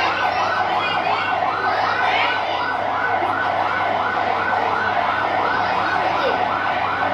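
A siren-like electronic warble, sweeping up and down in pitch about three times a second without a break.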